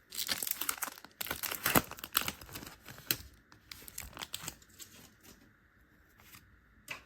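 Foil Pokémon booster pack wrapper being torn open and crinkled, with dense crackling for the first couple of seconds, thinning out and falling quiet about five seconds in.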